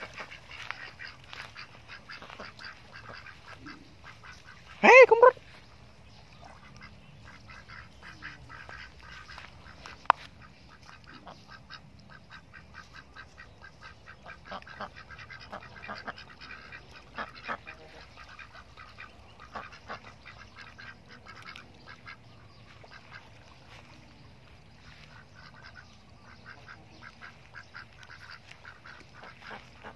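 A flock of domestic ducks quacking softly and chattering in quick, repeated calls, with one loud call about five seconds in. A single sharp click comes about ten seconds in.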